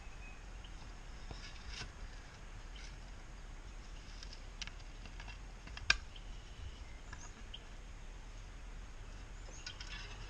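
Outdoor ambience with a low steady hum, a few short high bird chirps, and scattered small clicks, the sharpest about six seconds in.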